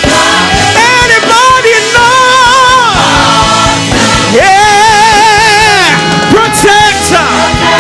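Gospel worship song: a solo voice sings long held notes with a wide vibrato over instrumental accompaniment with a beat.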